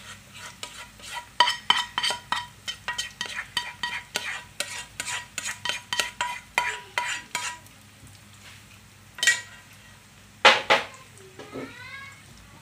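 Spatula scraping and tapping against a non-stick frying pan as egg-coated fried rice is spread and pressed down, with a light sizzle underneath. The strokes come about three a second for the first half, then stop, and two louder knocks follow near the end.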